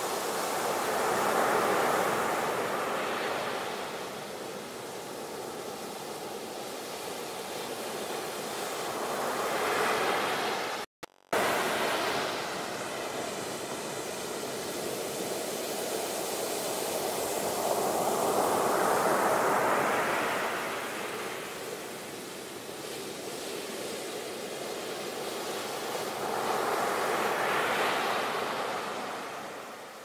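Sea waves washing in, a steady rush that swells and fades in slow surges about every eight or nine seconds. The sound drops out briefly about eleven seconds in.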